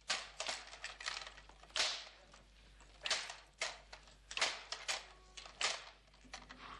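A beating: a dozen or so sharp blows land at an uneven pace, about two a second, as a soldier strikes a prisoner.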